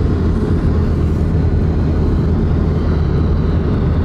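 Steady low drone of tyre and engine noise inside a moving car's cabin.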